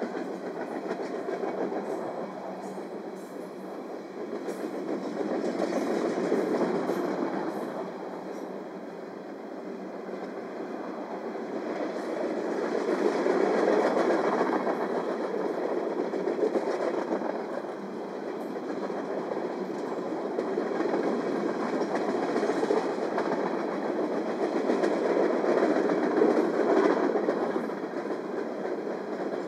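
Freight train cars rolling past: a steady wheel-on-rail rumble with clickety-clack of wheels over the rail joints, swelling and easing several times.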